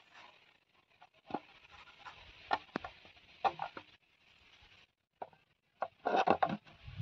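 A plastic bottle being handled, with scattered taps and crinkles and a denser burst of crackling about six seconds in as a stick is worked into its neck.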